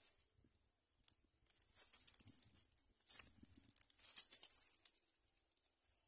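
Dry grass and leaves of the nest crackling and rustling in three bursts, with a single sharp click about a second in.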